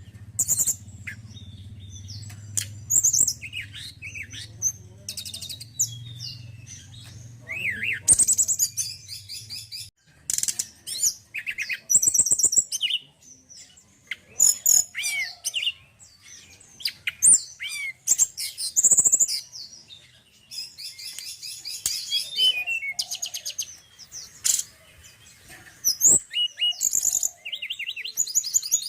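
Male tledekan gunung songbird singing: repeated bursts of high, quick chirps, trills and rising and falling whistled notes, with short pauses between phrases. A low steady hum underneath stops about ten seconds in.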